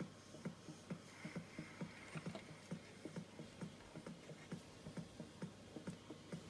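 Faint, regular ticking, about three soft ticks a second, over a steady low hum.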